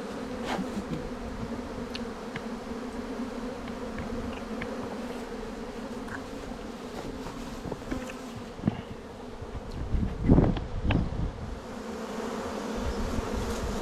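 A swarm of honey bees buzzing, a steady droning hum, with a couple of low thumps about ten seconds in.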